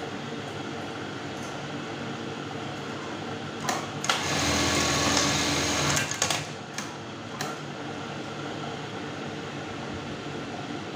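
Brother 814 industrial buttonhole sewing machine, fitted with a new 50- and 26-tooth gear pair to make it run faster. Its motor hums steadily. About four seconds in, the machine sews a test buttonhole cycle for about two seconds, louder, and a few sharp clacks follow as the cycle ends.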